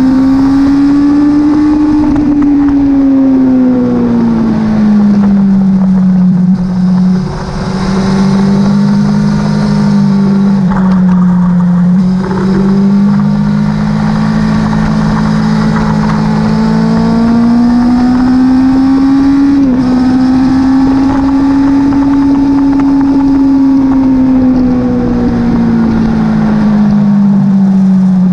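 Motorcycle engine at high revs on a race track, its pitch rising and falling in long slow sweeps with a few abrupt steps as gears change, over wind rushing on the bike-mounted camera's microphone.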